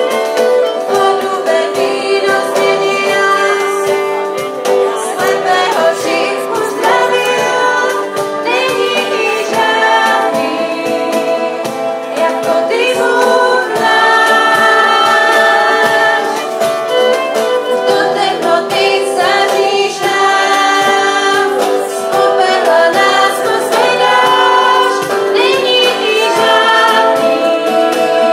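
Youth choir singing a worship song in mixed voices, with acoustic guitar accompaniment.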